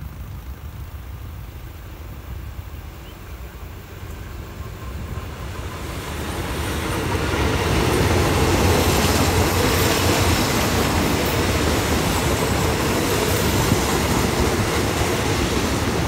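A passenger train hauled by a GE diesel-electric locomotive approaches and passes close by. A low engine rumble grows louder over the first half, peaking as the locomotive goes by about eight seconds in, followed by the steady rolling noise of the coaches' wheels on the rails.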